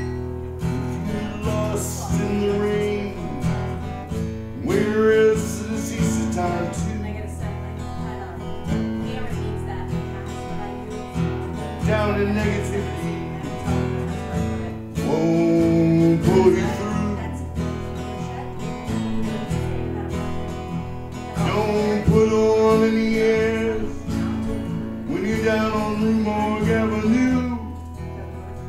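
Live band music: strummed guitar chords with a voice singing phrases that come in and out every few seconds.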